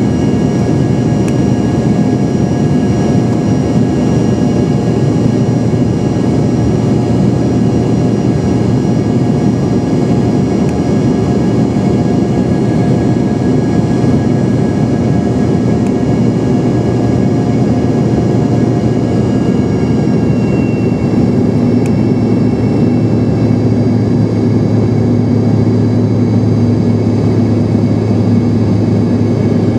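Embraer 145 cabin noise in flight: the rear-mounted Rolls-Royce AE 3007 turbofans and airflow make a steady, loud drone with several steady whining tones running through it, heard from inside the cabin.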